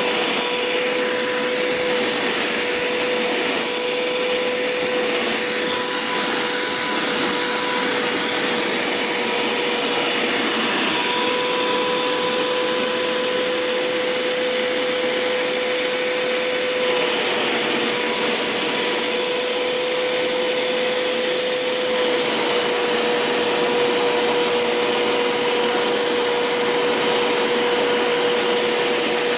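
Hoover Power Scrub Deluxe carpet cleaner running steadily with its upholstery tool, its suction motor giving a constant rush of air with a steady hum and a high whine that drops slightly in pitch near the end.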